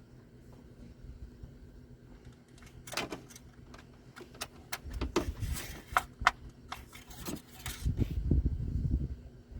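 Engine-oil dipstick drawn from its tube and handled: a series of sharp clicks and scrapes starting about three seconds in, with low rumbling handling noise growing toward the end.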